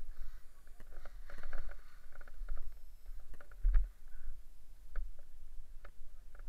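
Wind rumbling on a helmet camera's microphone, with scattered knocks and rustling as a paraglider wing and its lines are gathered up by hand. The loudest thump comes a little under four seconds in.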